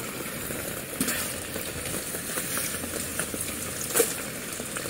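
Light rain pattering on a plastic gold pan and the water in it: a steady hiss with scattered small ticks, the sharpest about four seconds in.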